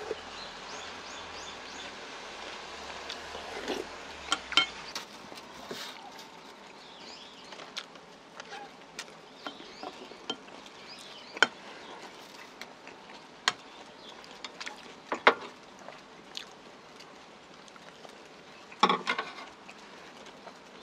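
Close-miked eating sounds: a spoon and chopsticks clicking against ceramic bowls as the bibimbap is stirred and eaten, with mouth and chewing noises between. A louder cluster comes near the end, over a steady background hiss.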